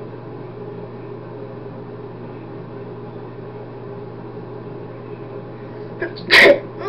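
A man's forced sneeze with his nostrils pinched shut: one loud, sudden burst about six seconds in, with a faint catch of breath just before it.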